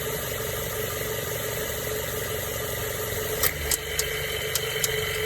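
2007 Mazda 3 running with a steady hum under the hood. A little over halfway through, a sharp click starts a run of clicks, about three a second: the clicking of the AC compressor.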